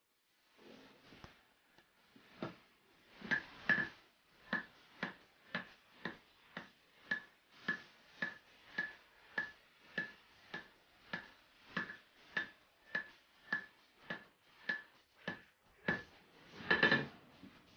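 Hand hammer forging a red-hot steel axe head on an anvil: a steady beat of a little under two blows a second, each strike ringing with the same clear note. A quick double blow comes a few seconds in, and a louder flurry of blows near the end.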